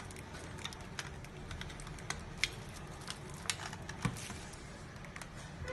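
Clear plastic packaging being handled: the plastic tray and the bag around a mini keyboard crackle and click irregularly as the keyboard is slid out.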